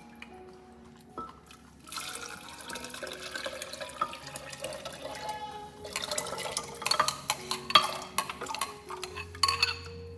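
Liquid being poured into a container for about four seconds, then a run of clinks and knocks from dishes and utensils being handled, as a cooked-corn mixture is readied for blending.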